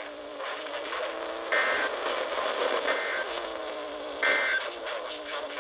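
Three short bursts of Emergency Alert System end-of-message data tones, a warbling digital chirp each about a third of a second long and a little over a second apart. They sound over the hissy, band-limited background of a radio broadcast and mark the end of the tornado warning.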